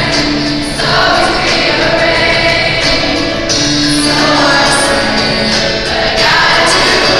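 A student choir singing in long, held notes.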